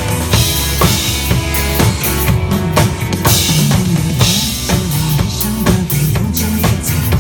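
Instrumental introduction of a Mandarin pop song: a steady drum-kit beat with kick and snare over a bass line, before the vocals come in.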